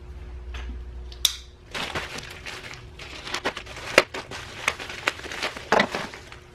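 White plastic shipping mailer crinkling and crackling as it is cut and pulled open by hand, in a string of irregular snaps, with one sharp click about a second in.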